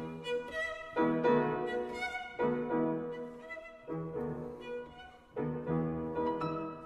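Instrumental background music: a violin melody of held notes over a lower accompaniment.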